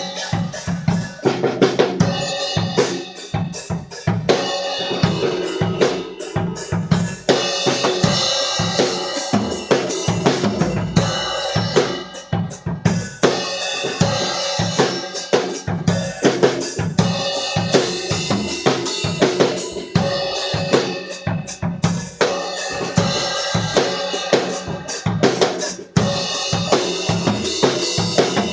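Tama drum kit played at a driving, steady rock beat: bass drum and snare hits under constant cymbal wash.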